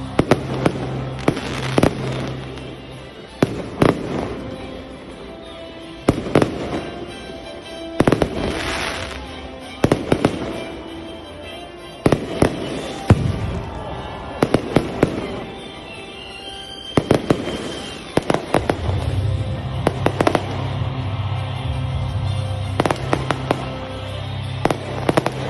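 Aerial fireworks bursting: repeated bangs and crackling pops, coming in irregular clusters of quick reports throughout, with a brief hiss about eight seconds in.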